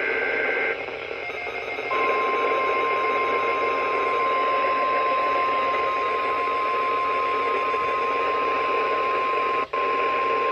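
NOAA Weather Radio receiver playing a Required Weekly Test over static: a burst of warbling SAME data-header tones ends just under a second in, then the steady 1050 Hz warning alarm tone starts about two seconds in and holds, with a brief dropout near the end.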